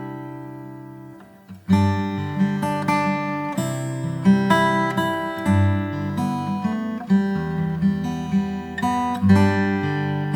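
Background music: strummed acoustic guitar. A held chord fades away, then rhythmic strumming starts again about two seconds in.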